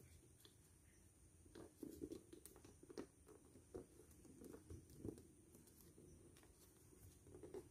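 Faint rustling and crinkling of glossy origami paper being folded and creased by hand, with a scatter of small crackles, mostly between about one and a half and five seconds in.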